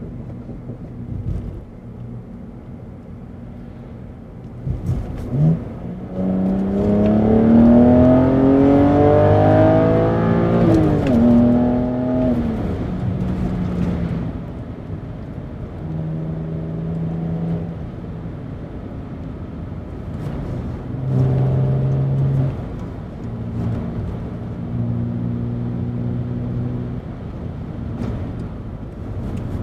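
Cabin sound of a BMW 330i's N52 3.0-litre straight-six with a BMW Performance rear silencer. After a steady low hum, the engine revs up hard for about five seconds under full acceleration and drops sharply at an upshift. It then runs at steadier, lower revs, with a few shorter rises and gear changes.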